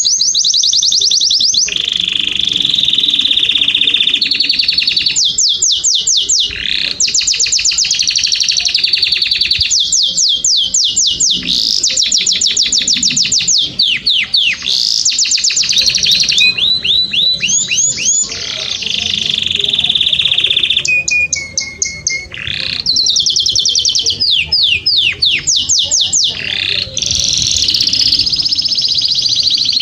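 Domestic canary singing a loud, continuous song, switching between fast trills of rapidly repeated sweeping notes and steady rolling phrases, with a few brief pauses.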